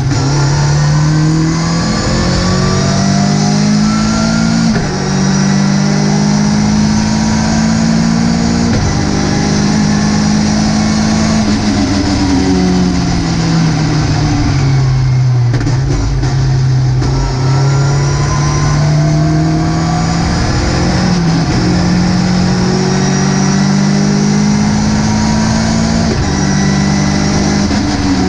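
Ginetta GT5 race car's engine at racing revs. The pitch climbs and drops back in several steps as it shifts up through the gears, falls steadily for a few seconds a little before halfway as the car slows, then climbs through the gears again.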